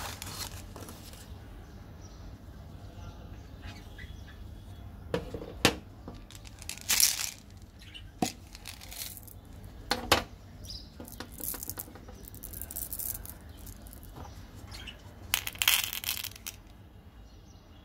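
Close-up candy handling: a foil chocolate wrapper crinkling, then sharp clicks and rustles from a plastic candy tube. Near the end comes a short clatter of small hard-shelled chocolate beans falling into a plastic cap.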